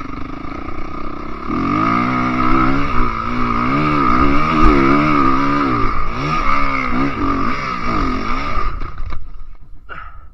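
Enduro dirt bike engine, its revs rising and falling about twice a second under throttle on a steep downhill. The engine note drops away about nine seconds in, and a few sharp knocks follow as the bike goes over.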